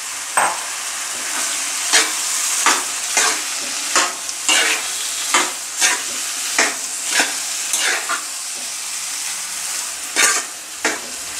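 Grated carrots and sugar cooking in a kadhai with a steady sizzling hiss, while a steel ladle stirs and scrapes the pan in short strokes about once or twice a second.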